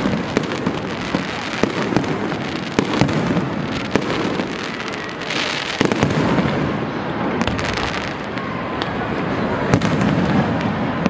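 Aerial fireworks display: shells bursting overhead in a steady barrage of sharp bangs and pops over a continuous low rumble, busiest about halfway through.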